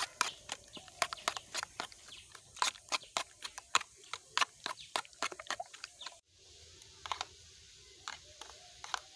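A metal spoon clinking and scraping against a metal bowl in quick taps, several a second, while beating raw eggs with grated radish, onion and green chilli. The clinking breaks off about six seconds in and comes back as a few sparser taps.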